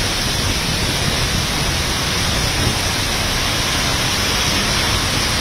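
Heavy rain falling steadily on a flooded street, with vehicles driving through the standing water.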